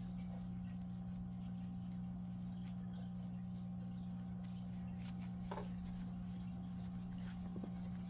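Steady low hum with faint soft rustling and a few light ticks from crocheted yarn puzzle-ball pieces being handled and fitted back together.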